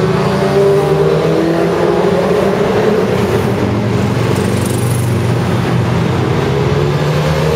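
A stream of motorcycles passing along a motorway, many engines running at once and overlapping, several engine notes gliding down in pitch as they go by, with car traffic mixed in.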